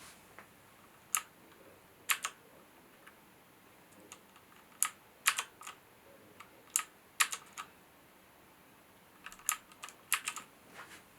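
HyperX Alloy FPS Pro mechanical keyboard with Cherry switches, keys being pressed in scattered clicks, singly and in short runs of two or three, with pauses of a second or so between them.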